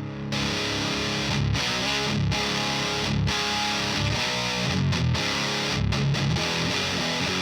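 Distorted electric guitar riffing: a Chapman ML1 Modern played through a Diezel VH4 preamp pedal into the power amp of an Orange Baby, with the gain set fairly high. Heavy chugging riff broken by several short stops.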